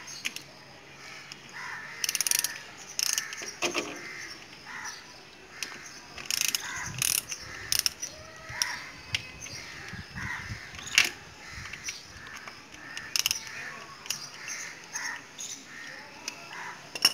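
Socket ratchet with an 8 mm socket clicking in short, irregular bursts while loosening the oil filter cover bolts on a motorcycle engine.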